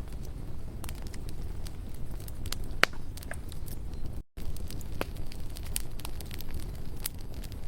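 Campfire burning: wood crackling with scattered sharp pops over a low steady rumble, one louder pop about three seconds in. The sound cuts out briefly a little past four seconds in.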